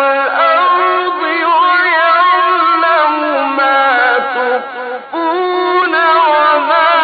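A male Quran reciter's voice chanting in the slow, melodic tajweed style, holding long, ornamented notes that waver in pitch, with a short break for breath about five seconds in.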